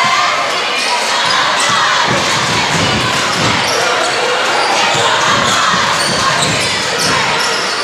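A basketball dribbled on a hardwood gym floor, a run of echoing bounces, over a steady murmur of crowd voices in a large gym.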